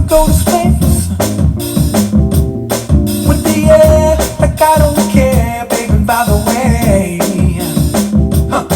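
Music with a steady drum-kit beat and guitar in a reggae-like groove, played back on a JBL Pulse 4 Bluetooth speaker for a sound test.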